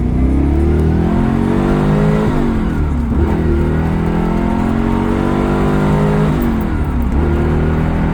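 A 1996 Corvette's LT4 5.7-litre V8 accelerating hard, its pitch rising steadily. The pitch drops sharply at two upshifts, about two seconds in and again about six seconds in, then climbs again each time.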